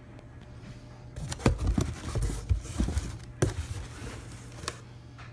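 Handling sounds as a new dry panel air filter and its packaging are picked up and turned in the hands: scattered clicks, knocks and rustles with a few low thumps, over a low steady hum.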